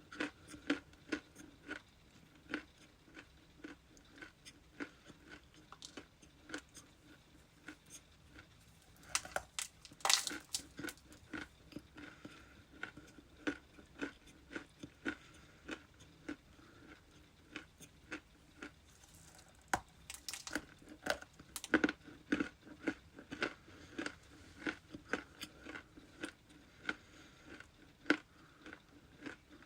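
Frozen ice being bitten and chewed close to the microphone: a steady run of sharp crunches and crackles, with louder bursts of biting about ten seconds in and again around twenty seconds in.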